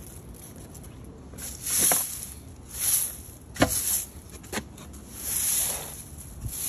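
Broom sweeping standing water across wet pavement: a swish with each stroke, roughly one a second, and a sharp knock a little past halfway.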